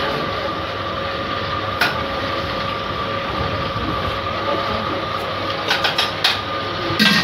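Steady roar of a stove burner under a large steel cooking pot, with a faint steady hum running through it. One sharp click about two seconds in and a few clinks near the end.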